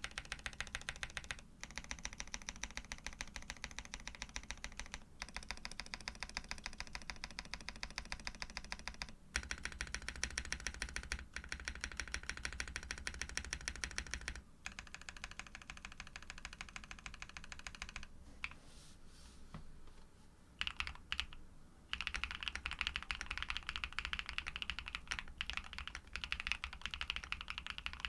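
Fast typing on a custom Neo80 v2 mechanical keyboard with lubed Pado v2 switches, a polycarbonate plate and PBT keycaps: rapid, continuous keystrokes in long runs. About two-thirds of the way through the typing thins to a few separate key presses, then picks up fast again.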